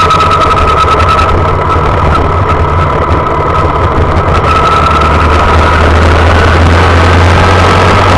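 Honda Monkey's small single-cylinder four-stroke engine running steadily under way, heard close up from the handlebar.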